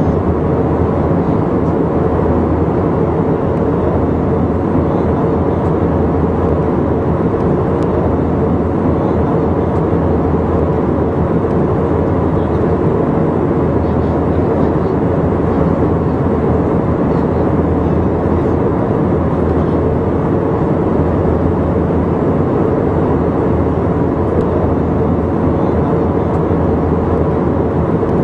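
Steady drone of airliner cabin noise in cruise flight: engine and airflow noise heard through the cabin, with a faint steady hum.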